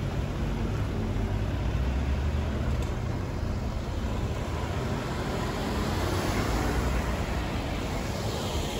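Road traffic along a town street: a steady hum of engines and tyres, swelling as a vehicle passes about six to eight seconds in.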